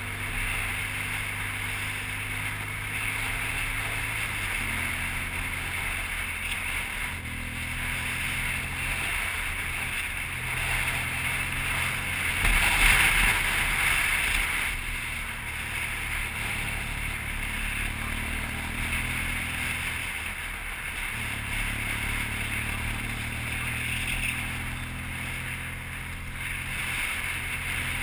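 BMW R1200GS motorcycle's boxer-twin engine running on the move, its pitch shifting a few times, under a steady rush of wind noise that swells briefly about halfway through.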